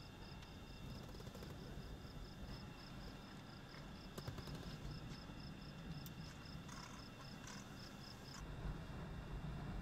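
Insect chirping in a fast, even pulse of about six chirps a second over a low rumble. The chirping stops suddenly near the end.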